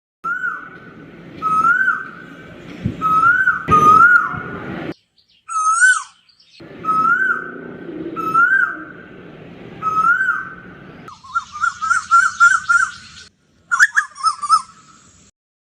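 Asian koel (a cuckoo) calling: a series of loud rising whistled notes repeated about every one and a half seconds, then a quicker run of short notes and a brief flurry near the end.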